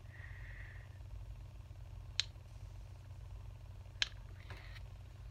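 Two sharp clicks about two seconds apart: teeth biting on the hard plastic of a fidget spinner, over a low steady hum.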